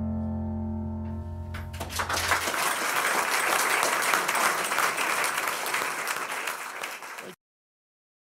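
The song ends on a held chord that fades out. Audience applause and clapping follow for about five seconds, then cut off suddenly about seven seconds in.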